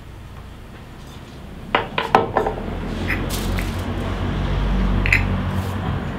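A few sharp knocks of things being set down on a wooden cutting board, then crinkling of aluminium foil being handled, over a low steady hum.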